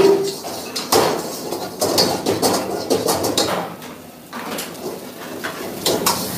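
Metal ladle knocking and scraping against a steel wok while rice is stir-fried and tossed, in irregular clanks, several close together at the start and more near the end.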